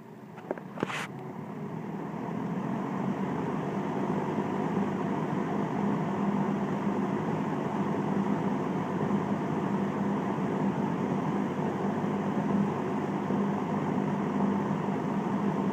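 1971 Lakewood S-23 20-inch box fan with metal blades started on high speed: a couple of clicks as it is switched on, then the whir of the blades rising over the first two or three seconds and settling into a steady rush of air with a low hum, a helicopter-like metal-blade sound.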